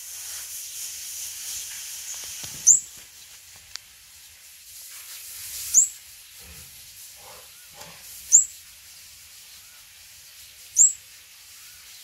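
Fledgling olive-backed sunbird calling: four short, sharp, high chirps a few seconds apart, each sweeping upward in pitch, over a steady hiss.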